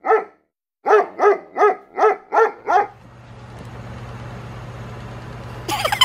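A small dog yapping seven times in quick succession, about three barks a second, each bark short and arching in pitch. Then a steady low hum of room noise, with a brief scratchy burst near the end.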